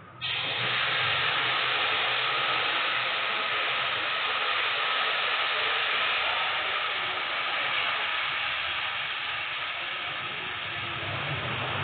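Sugar water poured into a hot pan of roasted semolina in ghee, sizzling with a loud, steady hiss that starts suddenly as the liquid hits the pan: the syrup going into the roasted semolina for suji halwa.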